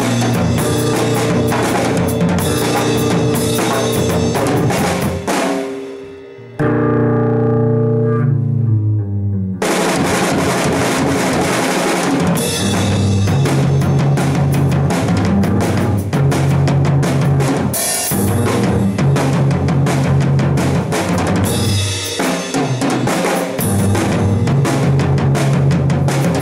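Music with a drum kit beat, kick and snare over held bass and chord notes. About six seconds in the drums drop out for a few seconds of muffled held notes, and the full beat comes back near ten seconds in.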